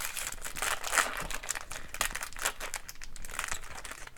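Trading card pack wrapper being torn open and crinkled by hand, a run of irregular crackling rustles.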